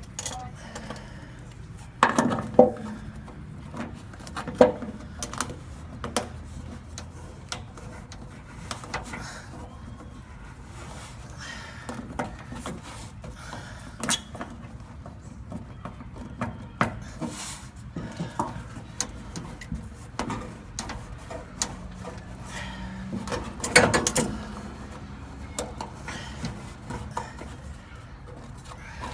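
Hand tools clinking and knocking against metal at irregular moments while working on a pickup's fuel lines, with a few louder clanks that ring briefly.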